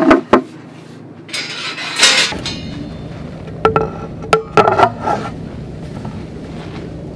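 Two sharp knocks of wooden boards set down, then, about three and a half seconds in, a quick run of metal clinks with a short ring as a folding steel camp-kitchen frame is handled and put together.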